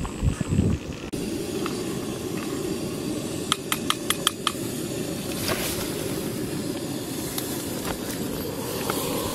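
Gas-fired camp stove burner under a Trangia-style cook set, hissing steadily. A quick run of about six light clicks about four seconds in, from a spoon against the pot.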